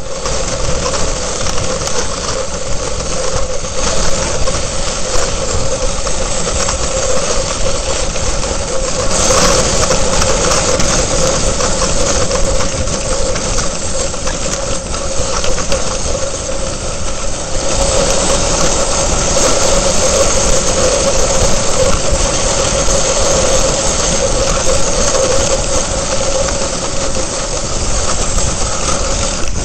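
Dog sled runners sliding over packed snow: a steady scraping rush with a constant squeaking tone, growing a little louder and hissier about eighteen seconds in.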